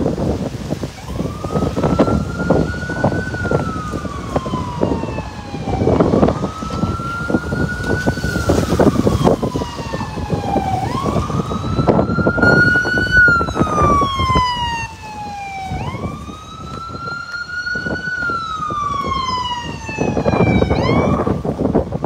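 Emergency vehicle siren wailing, each sweep rising and then falling slowly, about every five seconds, with quicker sweeps near the end. Gusty wind rumbles on the microphone underneath.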